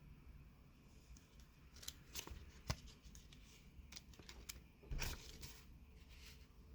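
Hands handling watch packaging: scattered faint clicks and rustles, with one sharp click near the middle and a louder rustle about five seconds in.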